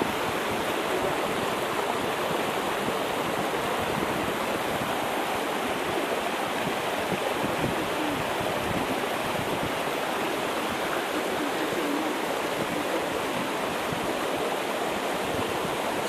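Steady rush of the Orekhovsky waterfall on the Bezumenka river, water pouring over the rock ledge at the top of the falls.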